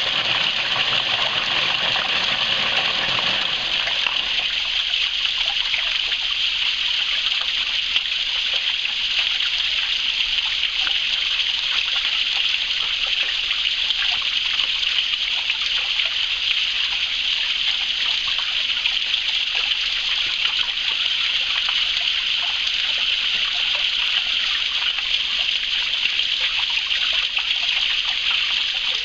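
Small stream flowing: a steady rushing and trickling of running water. A deeper part of the rush fades out about four seconds in.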